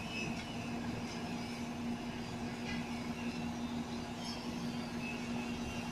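XCMG QY30K truck crane running with a steady, even hum while it has a bundle of scaffolding tubes on the hook.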